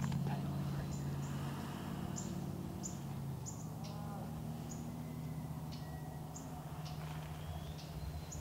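Small birds giving short, high chip notes at irregular intervals over a steady low hum.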